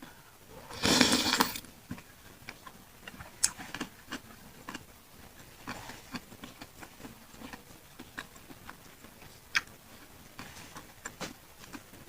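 Close-miked chewing of pentol meatballs in chili sauce: scattered wet mouth clicks and smacks, with one short loud noisy burst about a second in.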